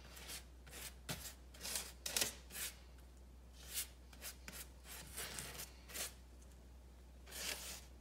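Pastry brush dabbing and stroking melted butter over the crust of baked French bread loaves: soft, irregular brushing and rubbing sounds, each brief, over a faint low hum.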